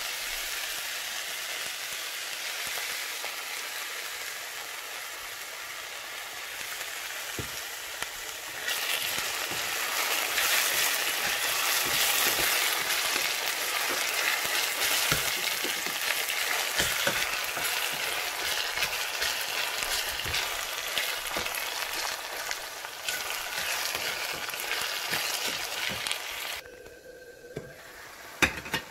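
Finely chopped onions frying with a steady sizzle in a stainless steel saucepan, their water cooked off. The sizzle gets louder about nine seconds in, then drops away sharply near the end, followed by a few knocks.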